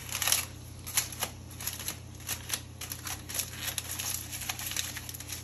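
Aluminum foil being crinkled and crimped by hand into a closed packet: a run of irregular, quick crackles.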